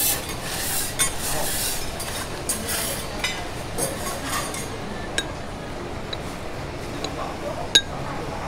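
Metal spatulas working a teppanyaki griddle: a run of scraping strokes across the steel plate, then a few sharp metal clinks in the second half.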